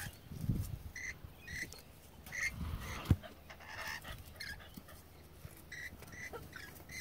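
Short high-pitched animal calls, a chirp every half second or so, with one sharp knock about three seconds in.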